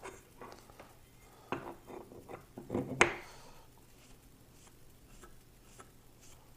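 Lansky medium-grit hone worked along a clamped pocket knife's edge: a few short scrapes and clicks of stone on steel, with a sharp metallic click about three seconds in.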